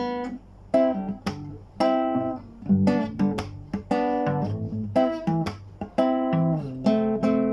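Music: a plucked string instrument playing a melody of quick single notes stepping up and down in pitch, with no singing.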